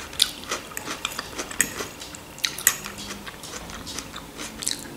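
Metal fork clinking and scraping on a plate of food, with close-up chewing and mouth sounds: a string of sharp separate clicks.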